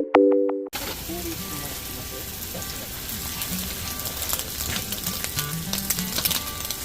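A short musical chime ends abruptly, then food sizzles steadily in a frying pan, with scattered light clicks.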